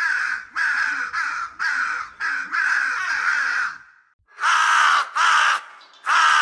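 Harsh cawing bird calls repeated in quick succession, about half a second each, with one short pause about four seconds in.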